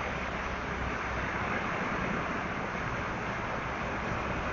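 Steady rushing of a flooded creek in spate: an even, unbroken noise of fast-moving floodwater.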